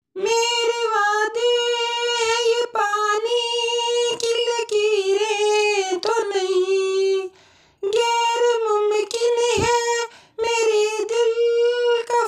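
A single high voice singing a wordless melody with long held, wavering notes, breaking off briefly about seven and a half seconds in and again about ten seconds in.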